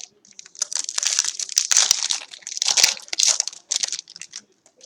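Foil wrapper of a Panini Rookies & Stars Longevity football card pack being torn open and crinkled by hand, a run of dry crackling rustles.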